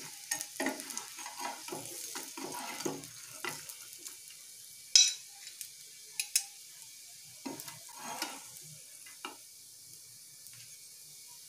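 Metal spatula scraping under rava-coated raw banana slices in a frying pan and setting them on a glass plate, with a string of short scrapes and clinks over a faint steady sizzle of hot oil. The loudest is a sharp clink about five seconds in.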